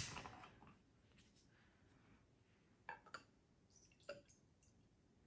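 Faint sound of a sports drink being poured from its bottle into a drinking glass, with a few small clicks and taps.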